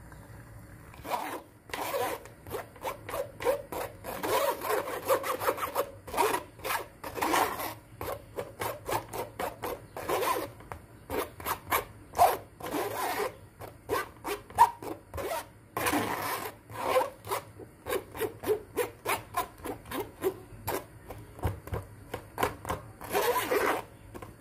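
Repeated rubbing and scraping strokes, a few a second with short pauses: blended pulp being worked through a strainer to squeeze out the liquid.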